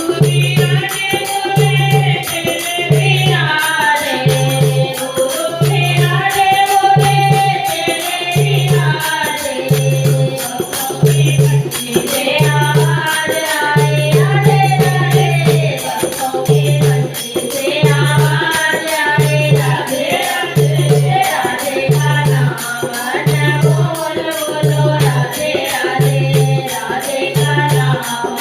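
Hindi devotional bhajan music: a sung melody over a low drum beat about once a second and a steady high rattle of jingles.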